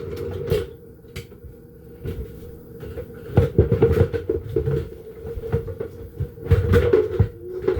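Irregular knocks and clunks of kitchen things being handled and set down, coming in a few short clusters, the loudest about three and a half seconds in and again near the end.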